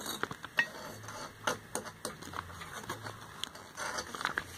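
Paper catalog pages being handled and turned: scattered light ticks and rustles at irregular intervals.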